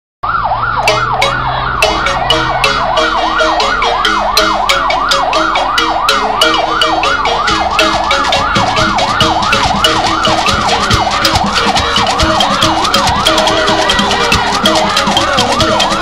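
Siren yelping in fast rises and falls, about four a second, over sharp percussive clicks and beats from the procession that grow denser after a few seconds.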